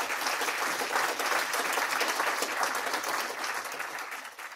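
Audience applauding: dense, steady clapping from a full room, easing off near the end.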